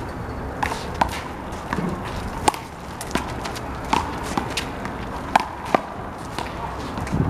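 Rubber handball being slapped by hand and bouncing off the wall and pavement: a string of sharp, irregularly spaced smacks, about a dozen of them.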